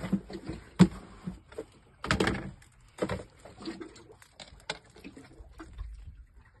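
Scattered knocks, thumps and rustles of hand-line fishing gear being handled on the deck of a small open fishing boat, the sharpest knock about a second in, then quieter ticks near the end.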